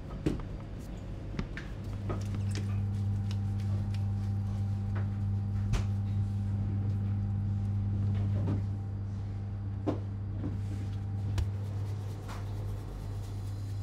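A steady low machine hum in a bakery kitchen, starting about two seconds in, with scattered knocks and clicks from kitchen work on top of it.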